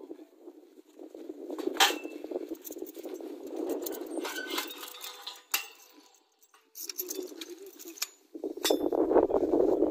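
Scattered metal clinks and jangling, with a few sharp clicks, as metal gear is handled. There is a short lull about six seconds in, and it gets louder near the end.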